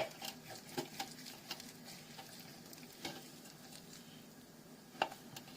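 A lemon being squeezed on a hand citrus juicer: a sharp knock at the start, then scattered small clicks and wet squelching as the fruit is pressed and twisted, with a couple of firmer clicks about three and five seconds in.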